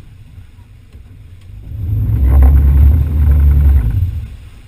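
Lifeguard rescue boat powering through breaking surf. A heavy low rumble swells up about two seconds in, holds for about two seconds, then dies away.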